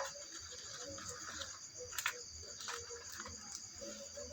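Quiet room tone in a pause between words: a steady faint high hiss with a few soft clicks, one at the start and two about two seconds in.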